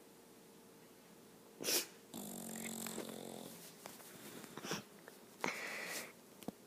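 Bulldog snoring in its sleep: after a quiet moment, a short sharp breath, then a longer snore with a low buzzing tone, followed by two shorter rasping breaths.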